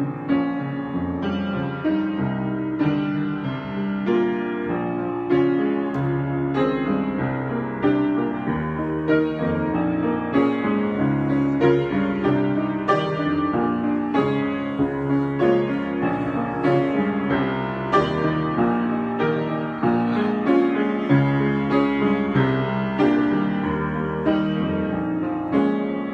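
Piano played as a free improvisation: a continuous flow of notes and chords, with new notes struck several times a second.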